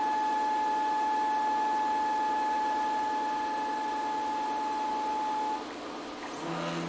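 CNC router's Z-axis stepper motor whining with a steady high tone as it feeds the spindle slowly down during an automatic tool-zero probe. The tone cuts off suddenly about five and a half seconds in, when the bit touches off the top of the block, and a short lower hum follows near the end as the axis moves again.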